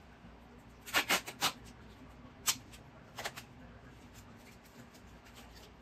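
Short, sharp rasping handling sounds as wire H-stakes are fastened together by hand: a quick run of about four, then a single one, then a softer couple.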